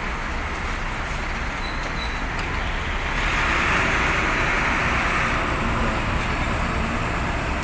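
Stationary Primajasa coach with a Tentrem Avante HDD body running at idle, a steady low rumble amid road traffic. A louder rushing hiss swells in about three seconds in and lasts around four seconds.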